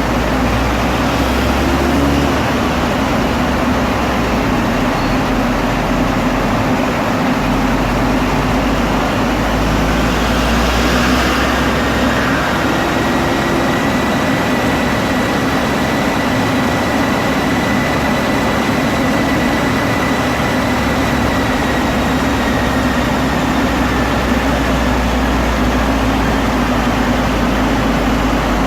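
APR stage 3 tuned Audi S1's turbocharged 2.0-litre four-cylinder running on a rolling road at a steady load, a constant loud mix of engine and tyre-on-roller noise. A faint whine rises slowly through the middle and then holds.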